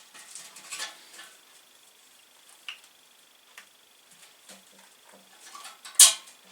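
Scattered light taps and clinks of hand tools being handled while measuring and marking, with a sharper clink near the end.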